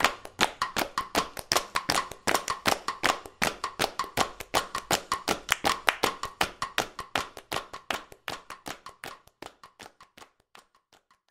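A fast, even run of sharp taps or clicks, about five a second, that dies away over the last few seconds.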